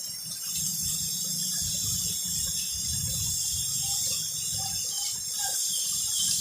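Heavy rain pouring down hard, a dense steady hiss with a low rumble underneath.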